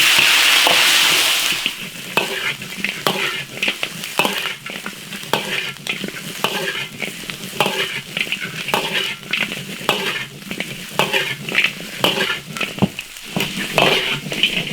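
Blanched lamb pieces go into bubbling caramelized sugar in an iron wok with a loud burst of sizzling that lasts about a second and a half. Then a spatula scrapes and clanks against the wok in quick, irregular strokes over a steady sizzle as the meat is stir-fried.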